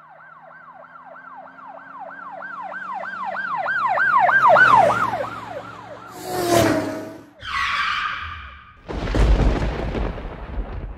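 Sound-effect intro montage. A yelp-style emergency siren wails about three to four times a second, growing louder and then dropping in pitch as it passes. It is followed by a whoosh, a short tyre screech, and a loud low rumbling rush near the end.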